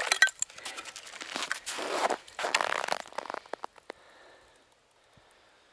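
A hatchet chipping and scraping ice out of a frozen-over ice-fishing hole: a few sharp clinks at first, then crunching and scraping of broken ice for about three seconds.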